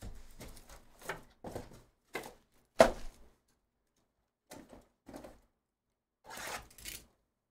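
Plastic shrink-wrap being torn and peeled off sealed trading-card hobby boxes, in short crinkling rustles with pauses, while the cardboard boxes are handled. One sharp knock about three seconds in is the loudest sound.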